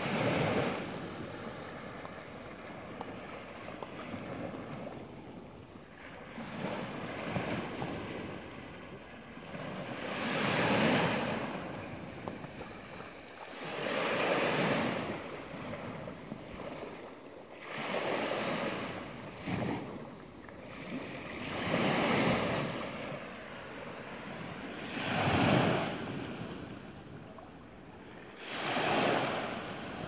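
Small sea waves breaking and washing up a sandy shore, each swelling and fading every three to four seconds over a steady wash.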